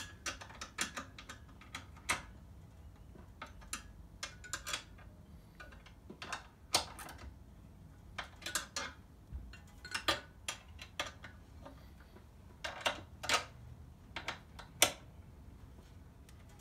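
Socket wrench and spanner clicking and clinking on the steel bolts of a cylinder mower's rear-roller brackets as the bolts are checked for tightness: irregular sharp metallic clicks, some in short clusters.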